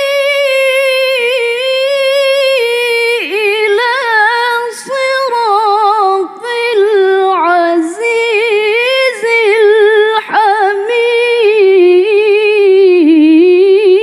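A woman reciting the Qur'an in the melodic tilawah style, solo and unaccompanied: long drawn-out notes decorated with quick wavering ornaments, broken by short breaths, settling into one long steady note near the end.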